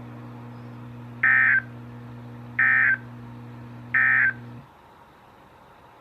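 NOAA Weather Radio SAME end-of-message code closing a flood warning: three short, identical data bursts about 1.4 seconds apart. A steady low hum runs underneath and cuts off just after the third burst.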